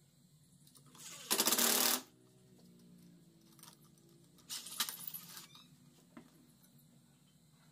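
Cordless drill/driver running the screw of a stainless worm-drive hose clamp tight around an angle grinder's body, in two short bursts: a loud one lasting under a second about a second in, and a shorter, choppier one a little after four seconds, with light metallic clicks of the clamp and bit.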